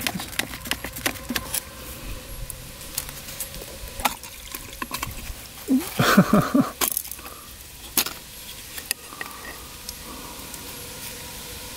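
Screwdriver and small metal parts clicking and clattering on a dirt-bike carburetor as the float-bowl screws are backed out and the bowl is pulled off, with fuel draining out. The loudest clatter comes about six seconds in, followed by a few scattered taps.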